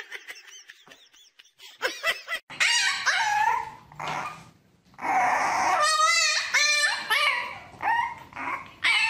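A French bulldog puppy whining and yelping: a run of high cries that glide up and down, with one long wavering cry about six seconds in.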